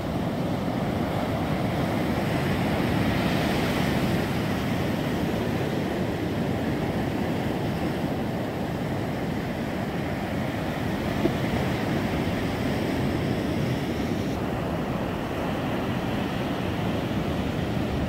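Small waves of surf washing up and running back over a sandy beach, a steady rushing wash, with some wind buffeting the microphone.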